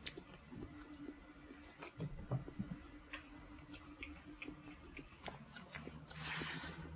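Faint scattered taps and light scratches of a kitten scuffling with a plush toy cat on a wooden floor, heard through a glass door, over a low steady hum. A short rustle comes about six seconds in.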